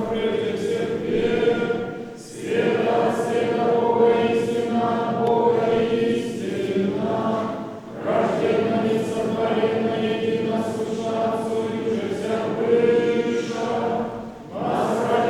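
Church choir singing Orthodox liturgical chant unaccompanied, in long held phrases with brief breaks about two, eight and fourteen seconds in.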